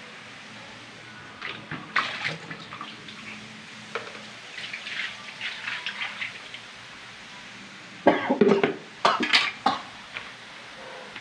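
Water splashing in irregular bursts over an air-conditioner evaporator coil as it is washed, loudest about eight to ten seconds in.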